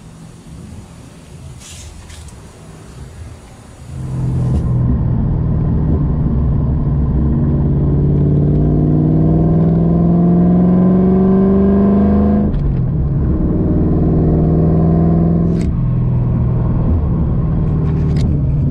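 Ford Mustang Mach 1 V8 exhaust through 3-inch Magnaflow Magnapack mufflers: the engine note comes in loud about four seconds in and climbs steadily in pitch as the car accelerates, with brief breaks about twelve and sixteen seconds in.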